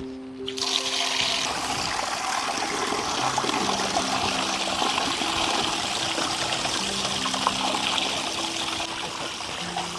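Steady rush of running or falling water that starts suddenly about half a second in, over soft background music of slow held notes.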